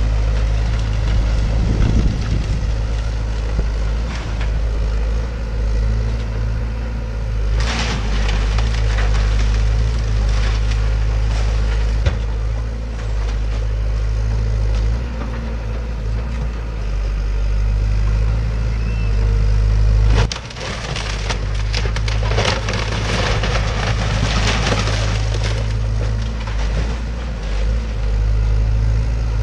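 Hyundai tracked excavator's diesel engine running steadily while its bucket tears into a wood-framed house, with bursts of wood splintering and crunching; the longest, loudest spell of breaking comes about two-thirds of the way through.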